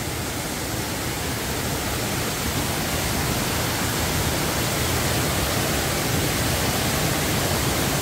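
Waterfall rushing steadily: a 15 m fall pouring down beneath a natural rock slab and cascading over large boulders into a pool. The sound slowly grows a little louder.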